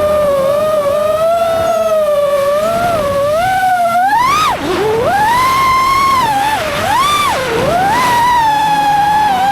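FPV racing drone's electric motors whining, the pitch swooping up and down with the throttle; a sharp drop and quick climb about four and a half seconds in, and two more dips near the end.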